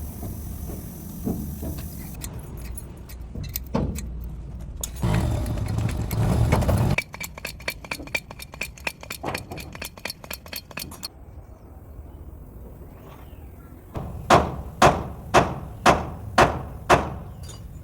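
Metal workshop sounds on a hydraulic bottle jack: scattered clicks, a fast, even run of clicking, then six loud, sharp metal knocks about half a second apart near the end.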